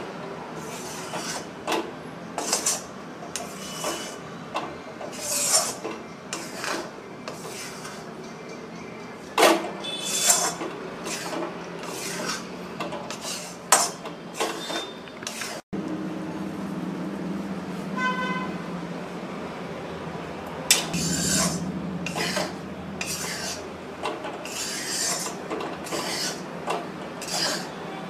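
A spatula scraping and stirring a dry, crumbly flour mixture round a steel kadhai as it roasts, in irregular strokes with an occasional sharper clink against the pan.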